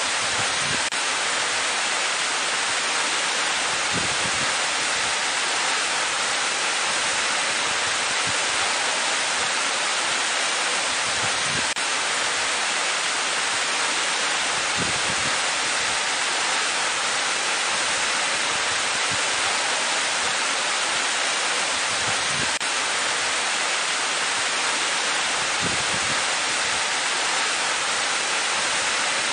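Waterfall running, a steady, unbroken rush of falling water.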